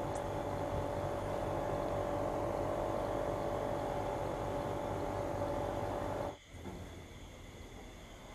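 Steady mechanical hum with a constant mid-pitched tone, which cuts off abruptly about six seconds in, leaving a quieter background.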